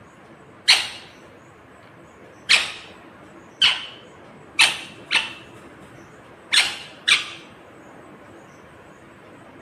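Green ringneck parakeet giving seven short, sharp calls, irregularly spaced, two of them coming in quick pairs.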